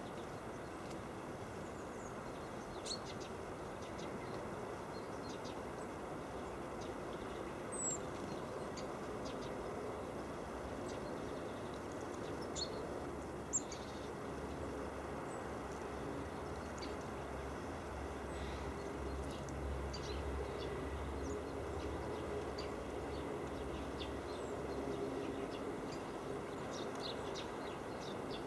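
Scattered short, high chirps of tits at a winter feeder over a steady low rumble of distant traffic, with a deeper drone swelling through the middle.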